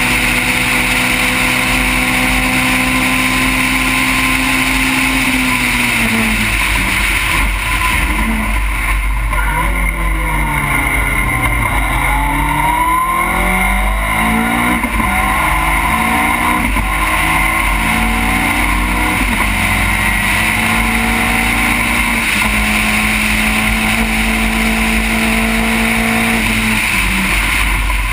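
Onboard sound of a Caterham race car's engine: held at high revs, then falling as the car brakes and changes down about a quarter of the way in, then pulling hard again, the pitch climbing and dropping back at each upshift. A steady rush of wind over the open cockpit runs underneath.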